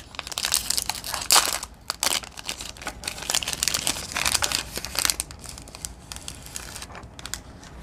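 Protein bar wrapper being torn open and crinkled by hand: a run of sharp rustles and crackles that thins out over the last couple of seconds.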